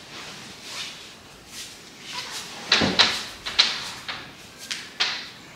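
Several irregular knocks and scuffs, mostly in the second half, as a large arched floor mirror is carried and set against a wall.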